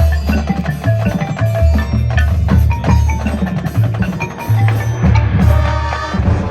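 High school marching band playing a loud passage with prominent percussion: many short struck notes over a low, moving bass line.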